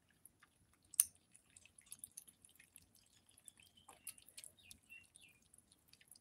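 Kittens eating wet cat food from a plate: faint wet lapping and chewing clicks, with one sharper click about a second in.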